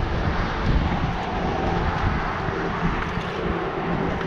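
Steady engine drone, even in level throughout.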